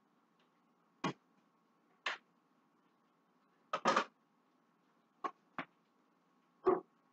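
Kitchen clatter: about six short knocks and clinks of items being handled and set down at the counter, roughly a second apart, one of them a quick double. A faint steady hum runs underneath.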